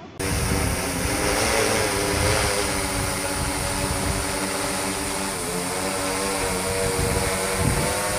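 DJI Matrice 300 RTK quadcopter in flight, its four propellers giving a steady multi-toned buzzing hum that dips briefly in pitch about five and a half seconds in.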